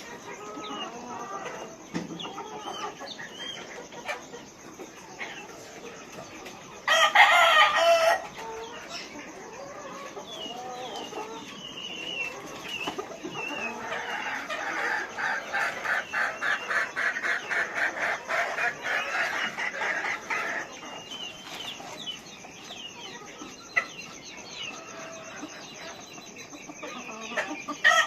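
A flock of chickens clucking, with a loud crowing call about seven seconds in and a longer run of rapid repeated clucks in the middle.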